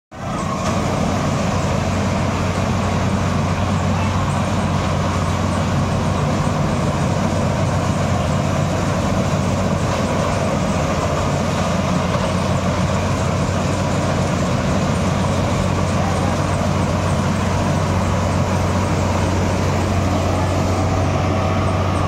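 Marksan K-BOS MS-1200 combine harvester running steadily as it works through the standing crop: a constant engine hum under an even mechanical din.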